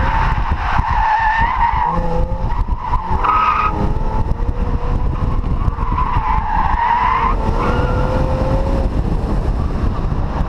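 Infiniti G37's 3.7-litre V6 running hard while its tyres squeal on and off through the cone slalom, the car being driven over the limit of grip. Heavy wind noise rumbles on the outside-mounted camera.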